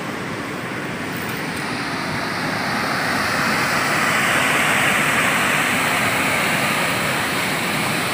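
Water pouring over a river sabo-dam weir and rushing through the churning water below, a steady rush that grows louder a few seconds in.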